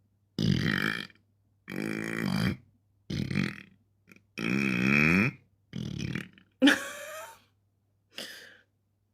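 A woman burping deliberately over and over: seven separate burps in a row, about a second apart. The longest, about halfway through, swings up and down in pitch; the last is short and quieter.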